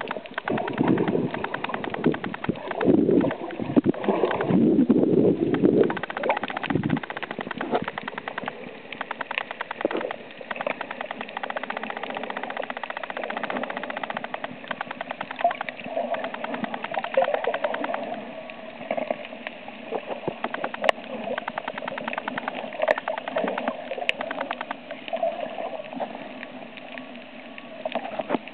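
Underwater sound picked up by a camera sealed for use underwater: a dense, steady crackle throughout, with louder muffled rushing in the first six or seven seconds.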